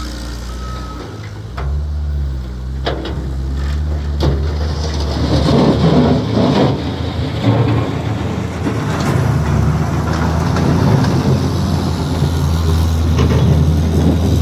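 Skid steer engine running steadily under load. A backup beeper sounds briefly at the start, and a rough scraping noise builds from about five seconds in as the machine works.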